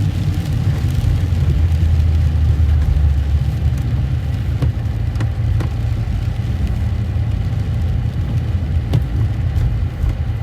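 Jeep being driven, its engine and road noise making a steady low rumble that is a little stronger for the first few seconds.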